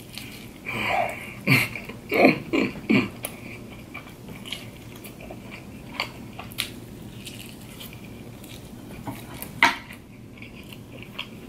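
Loud close-up eating: a person biting and tearing meat off a rack of barbecue ribs, then chewing. A cluster of loud bites comes in the first three seconds, quieter chewing follows, and there is one sharp loud click a little before the end.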